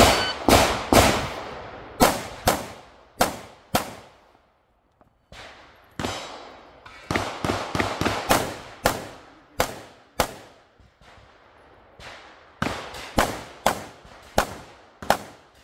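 FN 509 Compact 9mm pistol firing a stage: about twenty sharp single shots in quick strings, each with a short echo tail, broken by a pause of about two seconds around four seconds in.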